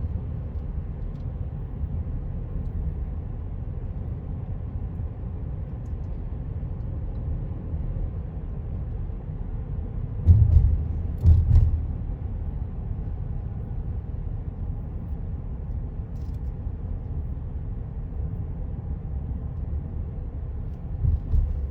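Road noise inside a moving car: a steady low rumble of engine and tyres, with two heavy low thumps about ten and eleven seconds in.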